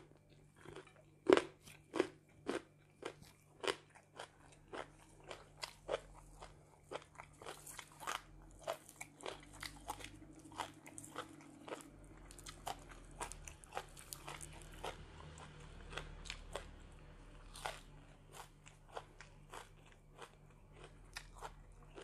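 Close-up chewing and crunching of crisp raw vegetables and herbs: a string of sharp, irregular crunches, the loudest a little over a second in.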